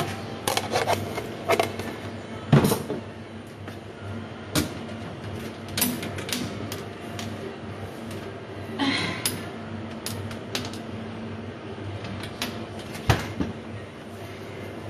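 Scattered clicks, knocks and rustling of things being handled, over a steady low hum; the loudest knocks come about two and a half seconds in and near the end, with a rustling burst about nine seconds in.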